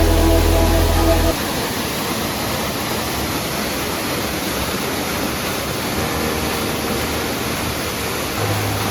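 Waterfall rushing: a steady, even roar of falling water. Background music plays over it for about the first second and comes back in near the end.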